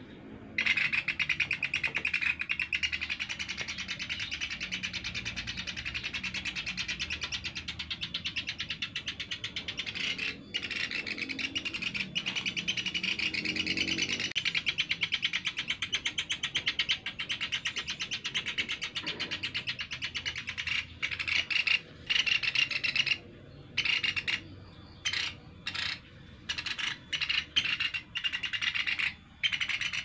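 Juvenile pelatuk beras (caladi, a small pied woodpecker) calling: a rapid, high, continuous chatter that breaks into short bursts with gaps in the last third.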